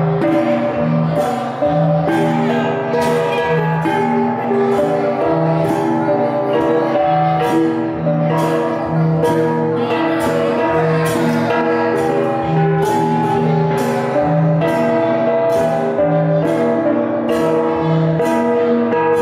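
A gong ensemble (cồng chiêng) playing: several gongs of different pitches struck in a steady repeating pattern, their tones ringing on and overlapping, with a regular beat of strokes a little more than once a second.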